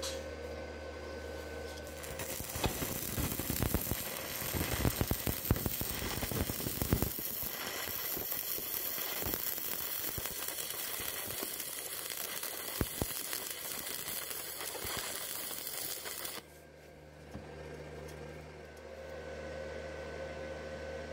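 Stick welding arc from a 2.0 mm rod at about 50 amps on thin steel square tube: a steady crackle with many sharp pops, starting about two seconds in and loudest over the next few seconds. It stops suddenly a few seconds before the end, leaving a low steady hum.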